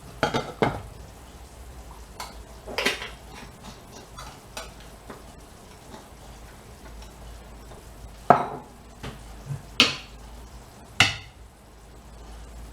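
Metal utensils knocking and clinking against cooking pots while stirring: a handful of separate sharp strikes, two right at the start, one about three seconds in and three more between eight and eleven seconds, over a faint steady background hum.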